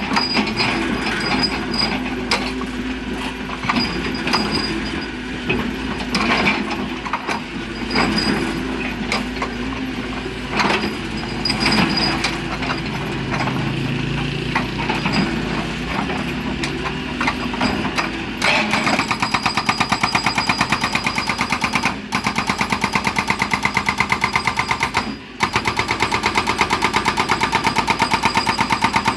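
Excavator engine running under irregular knocks and clanks for the first part. About 18 seconds in, its hydraulic hammer (rock breaker) starts pounding stone with rapid, evenly spaced blows. The pounding stops briefly twice.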